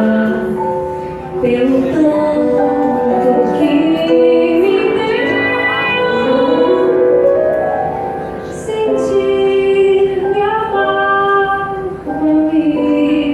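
A woman singing a slow song with instrumental accompaniment: long held notes that slide from pitch to pitch, with short breaks between phrases.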